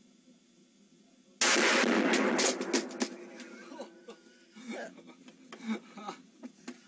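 A gun fired, about a second and a half in: a sudden, very loud, distorted blast with crackling that lasts about a second and a half, followed by men's voices.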